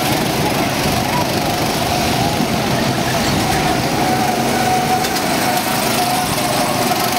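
Several small go-kart engines running as the karts circle the track, a steady buzz with a whine that wavers up and down in pitch.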